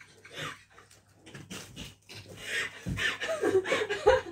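A woman's gasping, breathy laughter and wavering high squeals as she recovers from a fright, soft at first and getting louder about halfway through.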